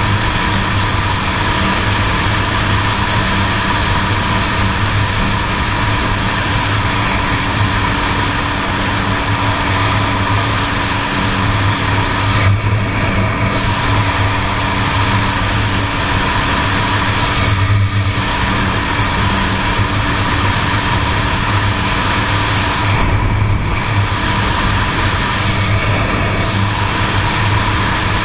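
1978 Suzuki GS750's air-cooled inline-four engine running steadily as the motorcycle cruises along the road, with wind and road noise over it. The rushing high end briefly drops away three times, about halfway through and again later.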